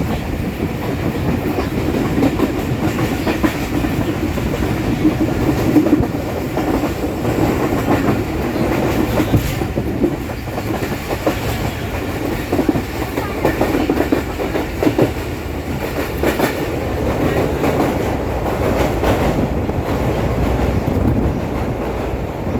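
Mehran Express passenger train running along the track: a steady rumble with frequent clatter and knocks from the wheels on the rails.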